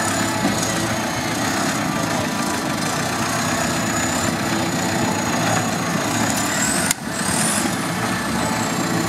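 Engine of a 4x4 off-road trial buggy running under load as it crawls over boulders, with a thin high whine above it.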